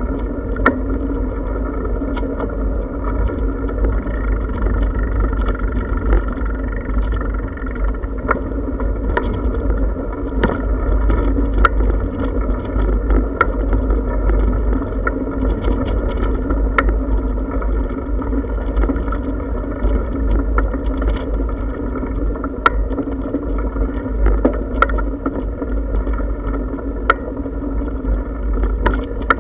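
Bicycle rolling along a paving-brick path: a steady low rumble of tyres and frame vibration, with scattered sharp clicks and rattles as it goes over the joints.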